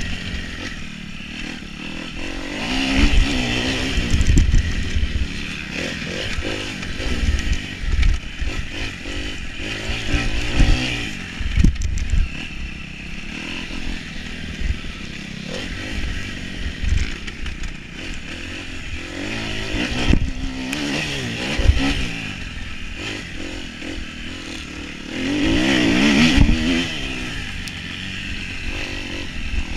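Dirt bike engine being ridden on a motocross track, revving up and backing off again and again as the throttle opens and closes, with louder surges about 3, 20 and 26 seconds in.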